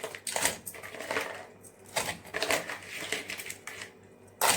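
Raw crabs being handled and put into a pot, their shells clattering and crunching against each other and the pot in a series of irregular bursts, loudest near the end.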